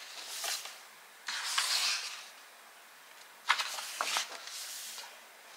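Paper pages of a book being turned: a soft rustle a little over a second in, then a sharper flick followed by more rustling about three and a half seconds in.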